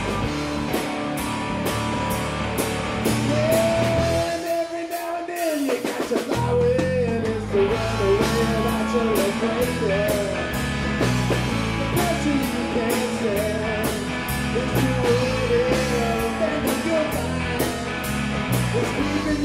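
Live rock band playing, with drums, guitar and a sung lead vocal. About four seconds in, the low end and drums drop out briefly under a held sung note, and the full band comes back in about two seconds later.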